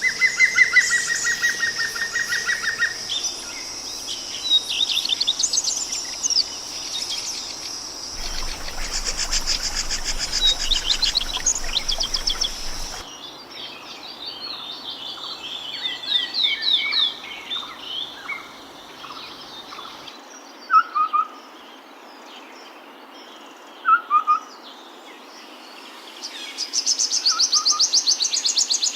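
Several wild birds singing and calling, with rapid trills near the start and near the end and short chirps in between. The background changes abruptly about eight, thirteen and twenty seconds in, as separate recordings follow one another.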